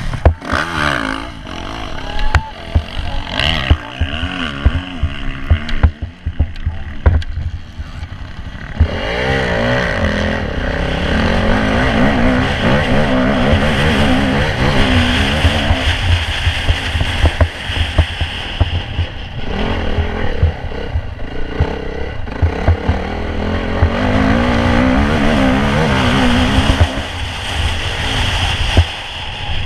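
Motocross bike engine heard from a camera mounted on the bike, revving up and falling back again and again through gear changes on the dirt track, with wind rush on the microphone. Through the first several seconds the engine is less steady and mixed with sharp knocks from the bike over the rough ground. About nine seconds in it gets louder and stays near full throttle down the straights, with a short lift off around twenty seconds.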